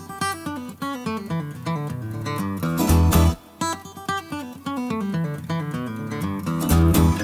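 Background music with plucked-string notes falling in quick stepped runs, and deep bass notes about three seconds in and again near the end.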